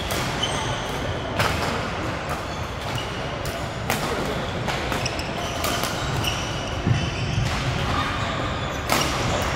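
Badminton rally in play: several sharp racket strikes on the shuttlecock, a few seconds apart, the last two the loudest, over a steady background of voices.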